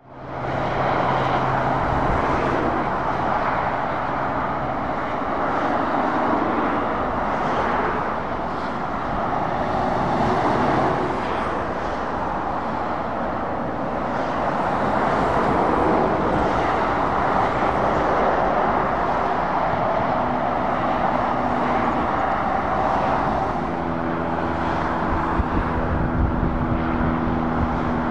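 Traffic on a dual carriageway: heavy trucks and cars passing with continuous tyre and road noise that swells and eases as vehicles go by, and the low hum of truck engines. A steady engine hum fades after the first few seconds, and another joins about four seconds before the end.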